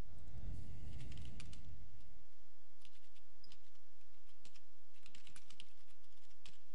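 Typing on a computer keyboard in short runs of keystrokes, with a low rumble over the first two seconds.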